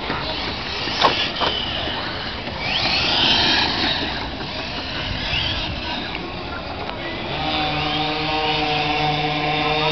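Radio-controlled touring cars racing, their motors whining higher and lower as they pass. There is a sharp click about a second in, and a steady low hum with overtones starts about three-quarters of the way through.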